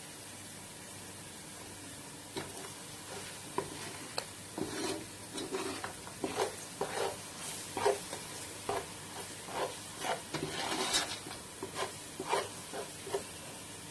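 Onion, garlic and green pepper sizzling gently in oil in a pot while a spoon stirs and scrapes them. The stirring starts about two seconds in as a run of short, uneven strokes.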